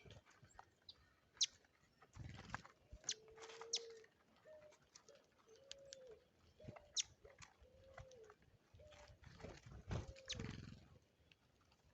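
A dove or pigeon cooing: a run of low hoots, one longer note and then a string of shorter, arched ones. Short sharp bird chirps and small clicks sound between them.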